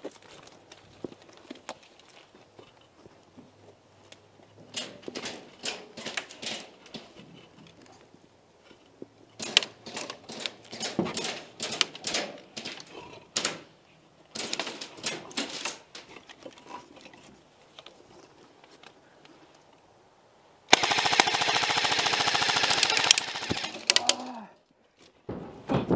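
Airsoft guns firing: scattered bursts of shots, then a loud, sustained full-auto burst of about three seconds near the end.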